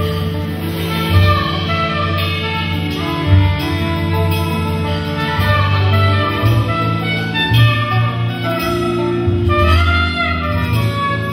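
Live jazz band playing: saxophone melody lines over a plucked double bass line.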